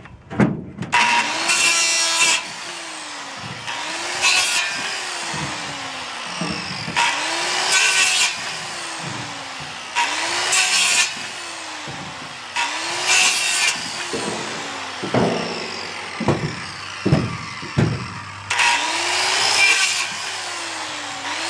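A corded Milwaukee circular saw crosscutting small branches for firewood, over and over. Each time the motor spins up, the blade rips loudly through the branch, and the motor winds down again, about every three seconds, six cuts in all. Short knocks of wood fall between some of the cuts.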